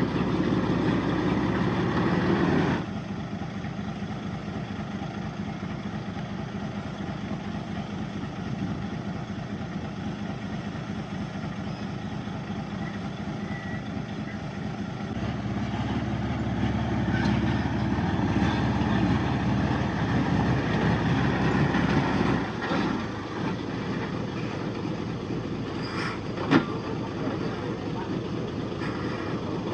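Heavy diesel earthmoving machinery running steadily, loud for the first few seconds, then dropping, then rising again in the middle. A single sharp knock comes near the end.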